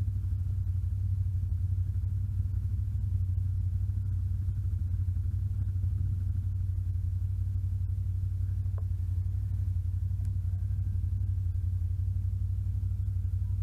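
ATV engine running at a steady speed, a constant low drone that holds the same pitch throughout.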